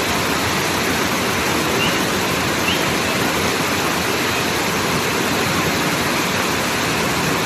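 Loud, steady rush of fast-flowing floodwater, a swollen river running in spate.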